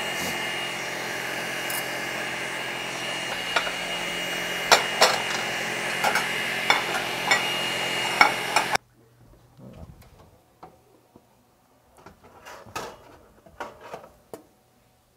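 Clinks and knocks of plates and utensils being handled on a kitchen counter, over a steady background noise with a faint high whine. About nine seconds in the noise cuts off suddenly, leaving only a few faint knocks.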